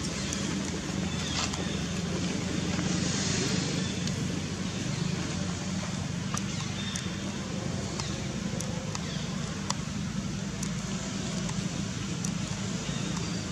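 Steady outdoor background noise with a continuous low hum, like distant engines or road traffic, and a few faint short ticks scattered through it.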